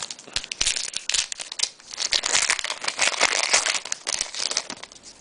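Hockey card pack wrapper being crinkled and torn open, a dense crackling rustle that is busiest and loudest in the middle.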